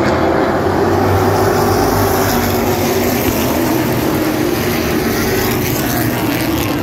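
Field of Sportsman stock cars racing around a paved short oval, many engines running together in one loud, steady drone. It grows brighter through the middle as the pack passes close by.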